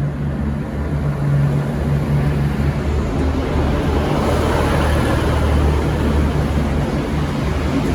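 Diesel engines of a V/Line VLocity diesel multiple unit running under load, a steady low drone with a broad rumble that builds from about three seconds in as the train pulls away.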